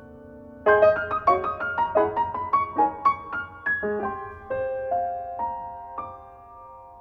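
Background piano music: a quick run of single notes about a second in, slowing to longer held notes.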